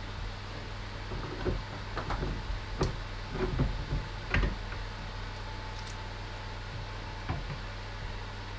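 Metal parts of a pillar drill's depth stop being handled and fitted into place: scattered light clicks and knocks, most in the first half, over a steady low hum.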